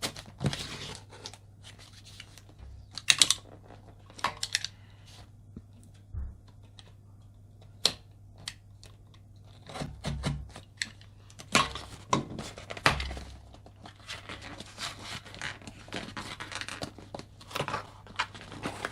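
Plain cardboard outer box being opened by hand: cardboard tearing and rustling in irregular bursts, with sharp clicks and knocks, busiest in the second half.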